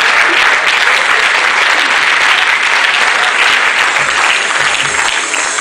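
Audience applauding steadily. About four seconds in, the low thudding beat of a music track comes in underneath.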